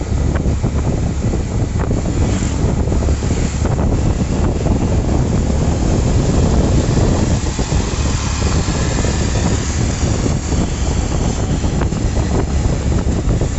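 Wind rushing and buffeting over the phone's microphone while riding in a moving open-sided auto-rickshaw, over the steady rumble of its engine and tyres on the road.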